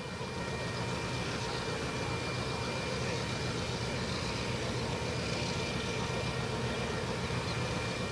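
SSR 442-class and GM10 diesel locomotives running as they approach, a steady engine rumble, with a level-crossing warning bell ringing as a steady high tone over it.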